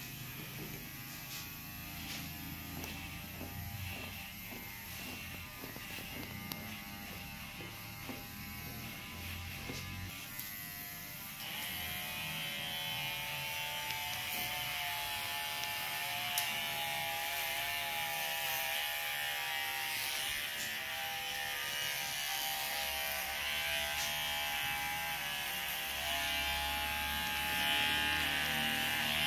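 Electric hair clippers buzzing steadily, with light clicks in the first part; the buzz grows louder and fuller about eleven seconds in and holds.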